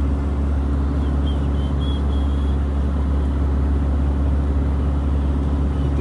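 Steady low rumble of a moving car's engine and tyres on the road, heard from inside the cabin.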